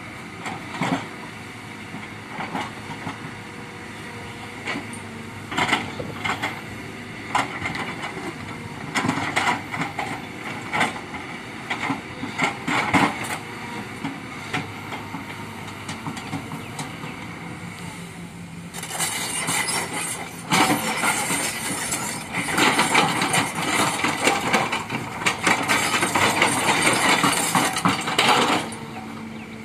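A Kobelco excavator running, with repeated sharp metal clanks and knocks over the steady machine noise. About two-thirds of the way in, a louder stretch of metallic grinding and squealing begins and keeps going until near the end.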